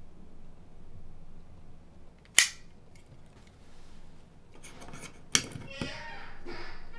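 Two sharp plastic clicks about three seconds apart from a small plug adapter being handled at a wall socket.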